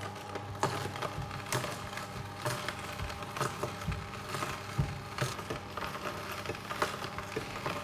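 Sana Juicer 606 horizontal slow juicer running, its motor humming steadily while the auger crushes a carrot, with irregular cracking and crunching snaps several times a second.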